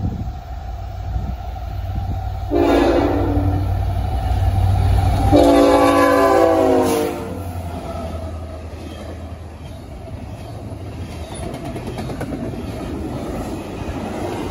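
A CSX diesel freight locomotive sounds its multi-note air horn in two blasts, the second longer and louder, as it passes with its diesel engine rumbling. From about eight seconds in, double-stack intermodal container cars roll by, their wheels running steadily on the rails.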